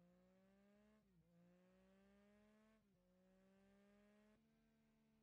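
Very faint vehicle engine accelerating through the gears: its pitch climbs steadily, drops sharply at three upshifts about a second, three seconds and four and a half seconds in, then climbs again.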